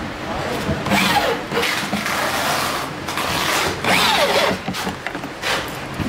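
Cordless drill driving screws into a washing machine's plastic base, its motor whirring in short bursts about a second in and again around four seconds, the pitch sliding as it speeds up and slows.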